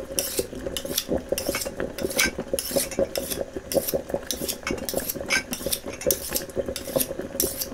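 Kitchen clatter: metal cutlery and pans clinking and scraping in many quick, irregular clicks over a steady hum.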